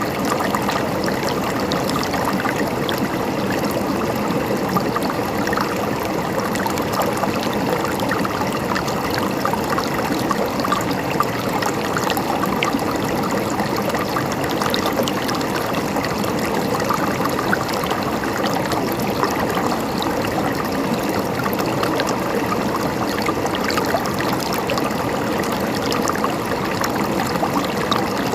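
Running water in a small stream, flowing and trickling steadily with many tiny splashes throughout.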